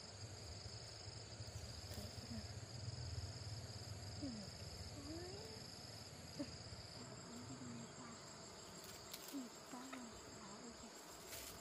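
Insects chirring in a steady, high-pitched drone, with a low hum under it that fades out about halfway through and a few faint clicks near the end.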